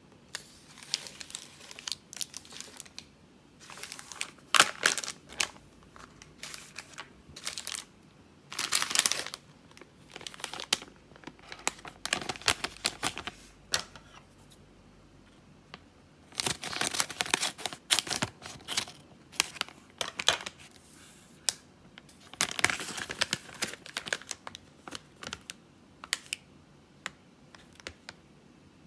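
Crinkly candy packaging being handled, rustling and crinkling in irregular bursts with short pauses between them.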